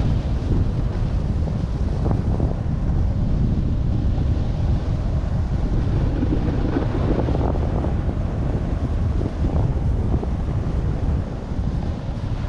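Wind buffeting the microphone during a run down a snowy ski slope in powder, a steady low rumble with a hiss of snow above it.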